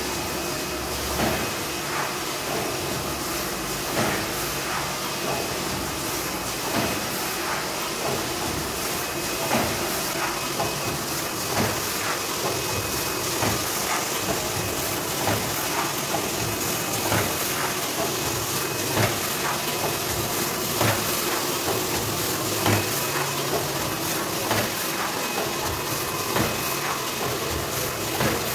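A paper food-container forming machine running steadily: a continuous hiss and hum, with a short mechanical clack every second or two as it works through its forming cycle.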